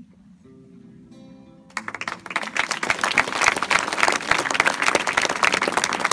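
A few held notes of music, then audience applause breaks out a little under two seconds in and grows louder.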